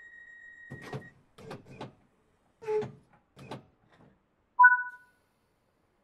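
Class 314 electric train's sliding doors working: a steady high warning tone stops about a second in, then a run of knocks and thuds, and a short two-note signal tone, the loudest sound, near the end.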